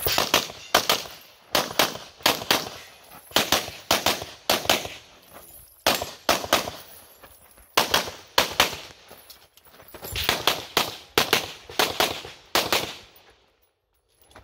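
Rapid pistol shots from a Carry Optics competition handgun, fired in quick pairs and strings with short breaks between strings as the shooter moves through a USPSA stage. The shooting stops and the sound drops out near the end.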